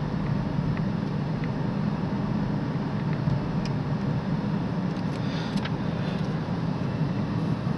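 Steady engine and road noise heard from inside the cabin of a moving 2010 Dodge Journey, with no alternator whine now that the alternator has been replaced.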